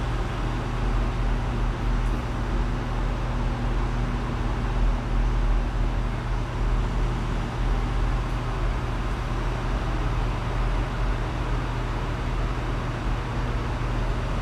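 Steady low rumble and hum of background noise, with a faint steady tone over it for the first half.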